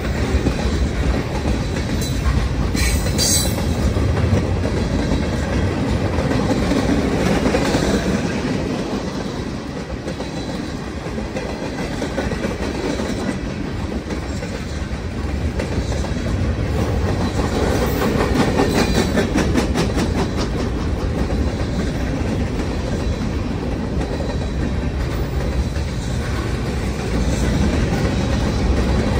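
Freight train cars rolling past close by: a steady rumble of steel wheels on rail, with clickety-clack as the wheels cross rail joints and a quick run of clacks a little past halfway.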